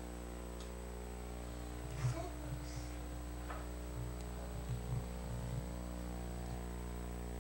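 Steady electrical hum with a thin high whine over it, the background of an old VHS camcorder recording. A few soft low thumps come in from about two seconds in.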